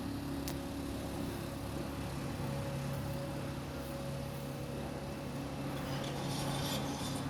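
An engine running steadily with a low, even hum over a wash of background noise; one faint click about half a second in.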